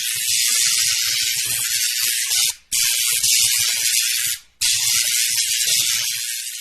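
Loud, even hissing noise, broken by two short dropouts about two and a half and four and a half seconds in.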